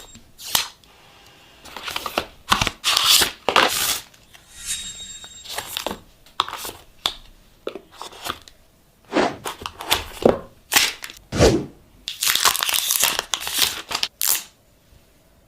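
Phone packaging being opened by hand: irregular bursts of tearing and crinkling of wrapping, with a longer stretch of tearing about twelve seconds in.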